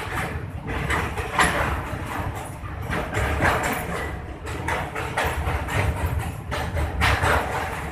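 A train running across a steel truss rail bridge, heard at an open coach window: a steady low rumble of wheels on rail with irregular clacking, and a rushing surge about once a second as the bridge's truss members pass close by.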